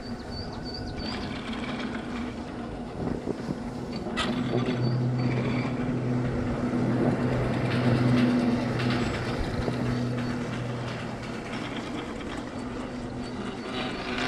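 Riding a Habegger T-bar ski lift uphill: skis sliding along the packed lift track with a steady low hum from the running lift that swells from about four seconds in and fades near the end. A few short high squeaks near the start and again around four seconds in.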